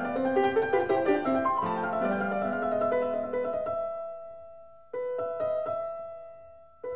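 Background piano music: a flowing run of notes, then slow chords struck about five seconds in and again near the end, each left to ring and fade.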